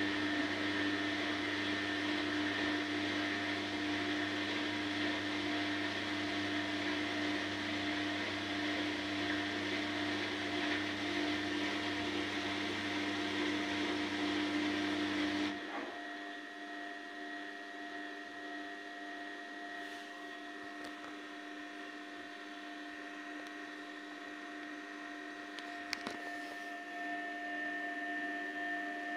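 Front-loading washing machine on a cotton 60° cycle, its drum turning with a steady motor whine and hum. About halfway through the motor cuts out suddenly and a quieter steady hum carries on, with a single click near the end.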